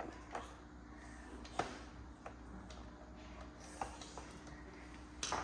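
A handful of light, scattered clicks and knocks from the Roomba 655's plastic parts being handled and fitted back together, the sharpest about a second and a half in.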